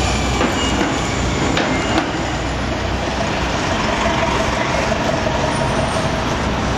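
Steady city street traffic noise, with a city bus driving past, and a short knock about two seconds in.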